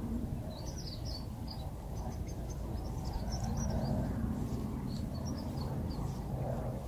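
Small birds chirping, short high calls scattered throughout, over a low steady rumble.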